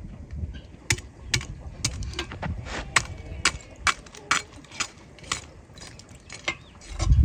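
A run of sharp clicks or knocks, about two a second, starting about a second in and stopping shortly before the end, over a low background rumble.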